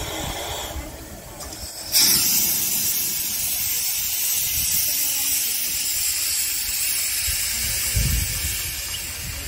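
Steam locomotive letting off steam: a loud hiss starts suddenly about two seconds in and carries on steadily.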